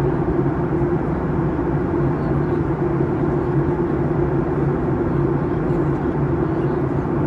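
Steady cabin noise of a jet airliner in flight: engine drone and rushing air, with an even low hum beneath it.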